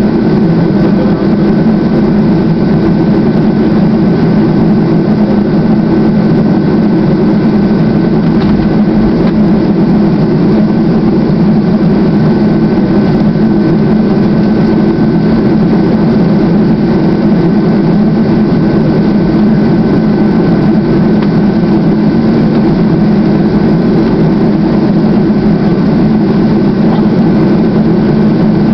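A Boeing 737-200's Pratt & Whitney JT8D jet engines at low taxi power, heard from inside the cabin over the wing: a loud, steady rumble with a thin, steady whine above it.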